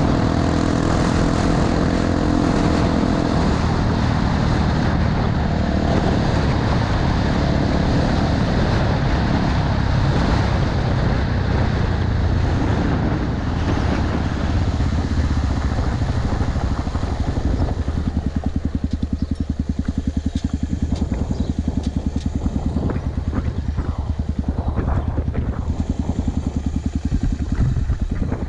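Honda XR250 Tornado's single-cylinder four-stroke engine running while riding on a gravel road, with heavy wind and tyre noise. About 18 seconds in, the rushing noise falls away and the engine's low, even firing pulses carry on at lower revs, with a few light clatters.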